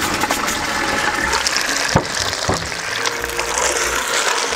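Clams cooking on high heat in butter and their own liquid in a pan: a steady sizzle and bubbling. There are two sharp knocks about two seconds in.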